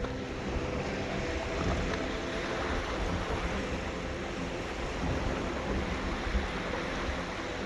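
Background music over a steady rush of sea water and wind noise.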